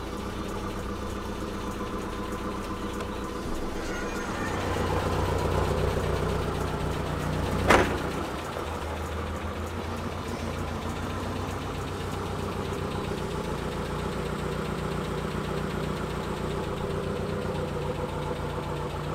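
Nissan 240SX engine idling steadily, freshly started. A single sharp slam comes about eight seconds in, a car door shutting.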